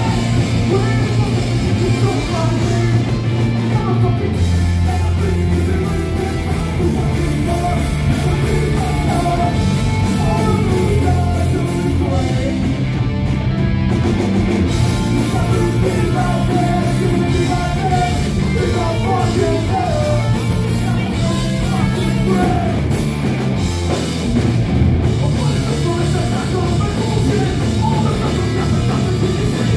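A rock band playing loud and live, guitar and bass under a singer's voice.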